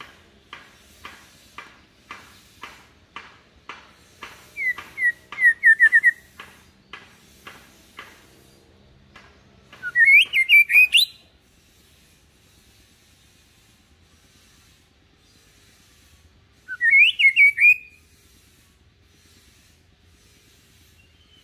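White-rumped shama (murai batu) calling and singing: a run of dry ticks about two a second, with a short string of falling whistled notes among them, then two loud rising warbled phrases about seven seconds apart. Its song is kept low and unaggressive, as a lure song for young shamas.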